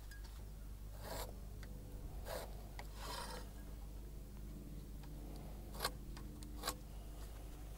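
Faint scratching of a pencil drawing lines across rough sawn timber against a try square, in a few short strokes, as measured lengths are squared in. The square shifts on the board, with two light clicks near the end.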